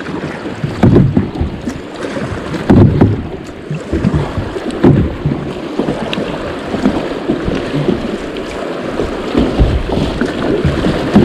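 Kayak being paddled into a small river rapid: rushing water along the plastic hull and paddle strokes in the water. Wind buffets the microphone in uneven low thumps.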